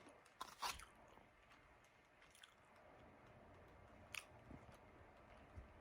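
Faint chewing and mouth clicks from someone eating steak close to the microphone, a few small sharp clicks over near silence.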